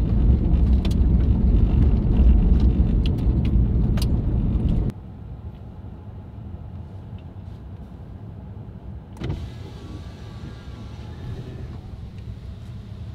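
Ford F-150 pickup driving on a gravel road, heard from inside the cab: a loud low rumble of tyres and engine with stones ticking now and then. About five seconds in it drops abruptly to a much quieter steady hum of the truck standing still with its engine idling, and there is a single knock a few seconds later.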